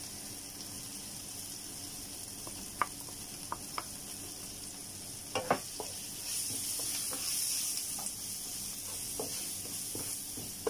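Tomatoes and onions sizzling in a frying pan while a wooden spoon stirs in spice powders, with a few light knocks against the pan. The sizzle swells about six seconds in as the mixture is stirred.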